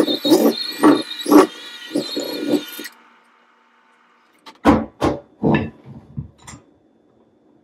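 Electric hand mixer running with uneven low thumps as its beaters work through thick, stiff dough in a bowl; the motor cuts off about three seconds in. Then a quick run of loud knocks and clunks as the mixer and bowl are handled.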